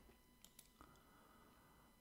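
Near silence: room tone with three faint computer-mouse clicks a little under a second in.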